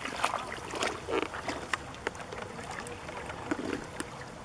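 Water splashing and sloshing as a dog wades from shallow rocks into a pond and starts to swim, with irregular splashes that are busiest in the first couple of seconds and thin out after.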